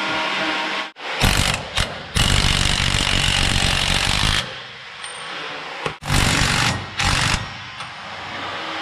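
Impact wrench run in bursts, tightening a stop nut onto a sway bar bracket bolt: two short bursts, one long run of about two seconds, then two more short bursts.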